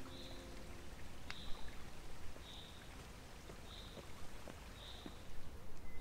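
Water of a small waterfall trickling, a soft steady rush, with a bird repeating a short high chirp about once a second.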